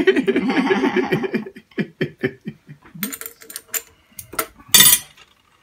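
A man laughing, then small metal clicks and clinks from parts of a Pfaff twin-needle sewing machine being handled, with one louder metallic clatter near the end.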